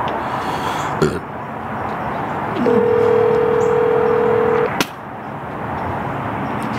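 Telephone ringback tone from a smartphone held to the ear: one steady ring about two seconds long, starting about two and a half seconds in, the sign that the call is ringing at the other end and not yet answered. A click comes about a second in and another as the ring ends, over a steady background hiss.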